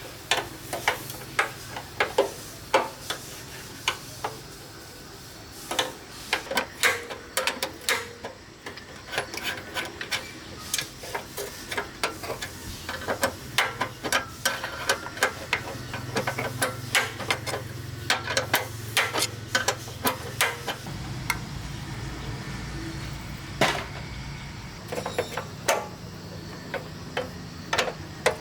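Repeated sharp metal knocks and taps of hand tools working on engine parts, irregular and sometimes in quick runs, over a steady low hum that grows louder near the end.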